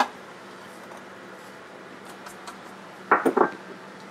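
Small glass prep bowls knocking against the plastic bowl of a mini food processor and the counter as ingredients are tipped in. There is a sharp click right at the start, a few faint ticks, and then a quick cluster of three or four louder clinks about three seconds in, over a faint steady hum.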